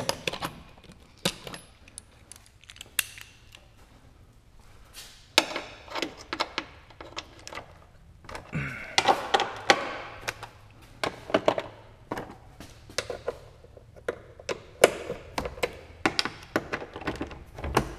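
Steel sockets clinking in a tool chest drawer as they are picked out, then a run of irregular clicks and knocks from hand tools working the bolts of the car's underbody panels, busier in the second half.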